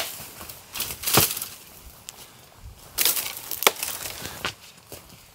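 Dry, dead beech branches being snapped off a tree by hand for firewood: several sharp cracks, with the twigs and foliage rustling between them.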